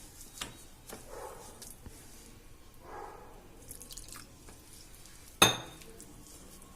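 Quiet room with a few faint scattered clicks and one sharp click about five and a half seconds in.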